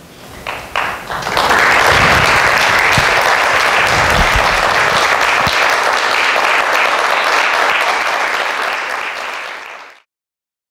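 Audience applauding at the close of a live stage performance: a few scattered claps at first, building to full, steady applause after about a second and a half, then cut off abruptly near the end.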